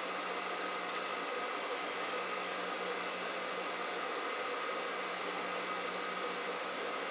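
Steady hiss with a faint low hum: background room noise, with no distinct event.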